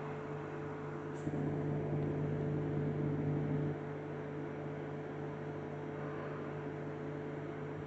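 Steady low electrical hum, with a soft, slightly louder noise for a couple of seconds near the start.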